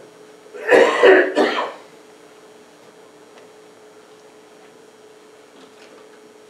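A person coughs and clears their throat: one loud burst of two or three quick coughs about a second in, lasting under a second. After it there is only a faint steady hum.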